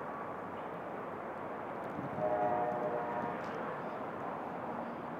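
A steady outdoor rumble, with a horn-like chord sounding for about a second a little over two seconds in.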